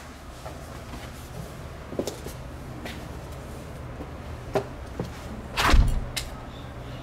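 Scattered knocks and clunks, about one a second from two seconds in, over a steady low hum; the heaviest is a deep thump a little before the end.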